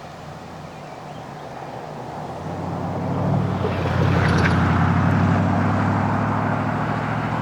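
Diesel locomotives of a Norfolk Southern freight train approaching and passing. A low engine drone builds from about two seconds in, is loudest about four seconds in, then holds steady.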